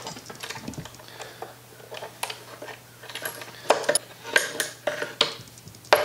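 Steel C-clamp being unscrewed and taken off a glued-up wooden molding: irregular metallic clicks and clinks from the clamp's screw and frame, with louder clanks in the second half.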